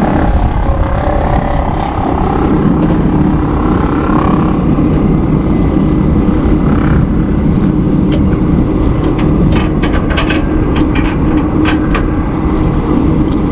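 Heavy-duty wrecker's diesel engine running steadily, with a few light clicks and knocks in the second half.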